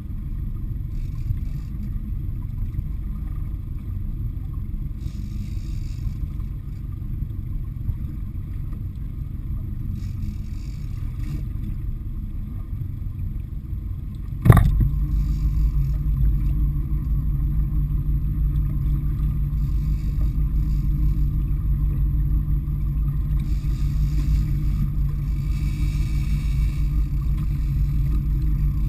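Boat engine running with a steady low rumble; a sharp knock about halfway through, after which the engine sounds louder and steadier.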